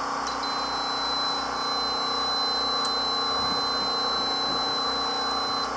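Power inverter's low-voltage alarm sounding one continuous high-pitched tone, which starts just after the start and cuts off near the end, over a steady hum. The alarm is set off because the inverter is hooked to 6 volts instead of 12.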